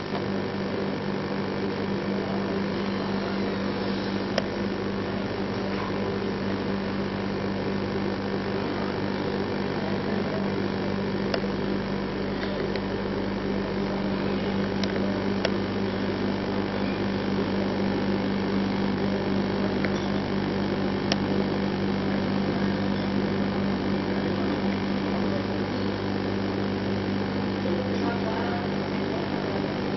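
A steady low mechanical hum that does not change, with a few faint ticks.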